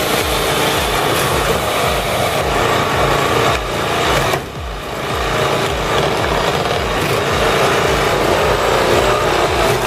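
Engine-driven log splitter running steadily, with wood being worked and split. The level dips briefly about four and a half seconds in.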